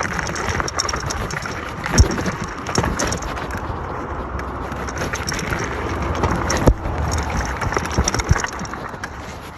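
eX-Trail1000 off-road electric scooter ridden over rough ground: a steady rumble and rattle from tyres and frame, with sharp knocks from bumps about two seconds in, again near seven seconds, and a few more near the end.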